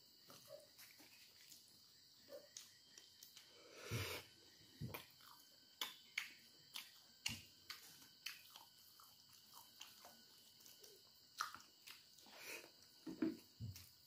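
Faint, irregular chewing and mouth smacks of a man eating rice and vegetables by hand, with short wet clicks scattered throughout and a louder one about four seconds in and another near the end.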